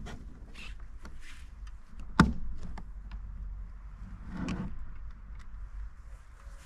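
Handling noise from fishing tackle: scattered clicks and knocks, with one sharp knock about two seconds in and a short rustle past the four-second mark.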